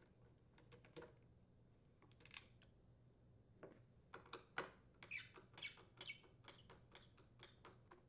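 T25 Torx screwdriver backing a screw out of a leaf blower's plastic engine cover: a few light clicks, then a run of short faint squeaks, about two a second, from about halfway through, each one a turn of the driver.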